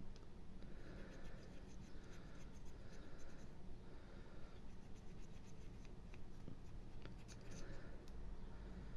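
Cotton bud scrubbing around the rims of a closed-face fishing reel's parts during cleaning: faint scratchy rubbing in several short strokes, with a few light clicks from the parts being handled.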